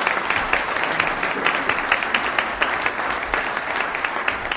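Audience applauding, a dense and steady clapping of many hands.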